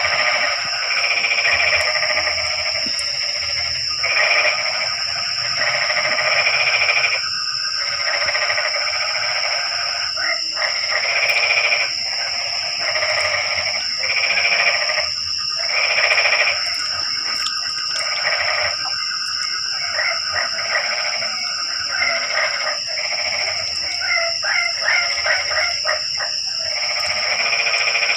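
Chorus of frogs calling in the rainy-season night, many voices in overlapping bouts of about a second that keep recurring, over a steady high-pitched trill.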